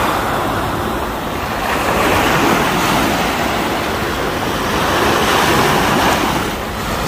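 Small sea waves breaking and washing up a sandy shore, a steady wash that swells a little twice, with wind rumbling on the microphone.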